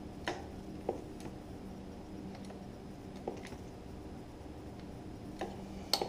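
A handful of short, light clicks and taps from hands working on a motorcycle brake bleed, over a steady low hum. Two of the clicks come close together near the end.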